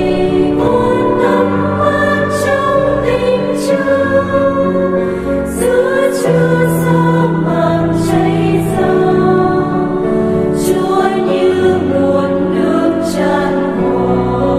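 Background music: a choir singing slow, held notes.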